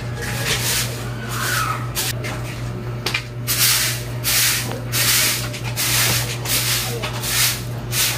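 Fibre broom sweeping wet concrete in short quick strokes, a swish about once or twice a second.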